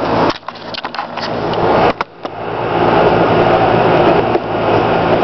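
Air-conditioner condenser unit running with a steady drone and low hum. The sound drops away for about two seconds near the start, broken by a few sharp clicks.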